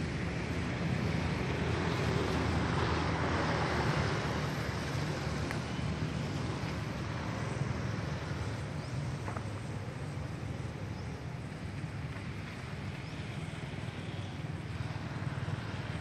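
Steady outdoor background noise: a constant low rumble under an even hiss, swelling slightly a few seconds in, with a few faint short ticks.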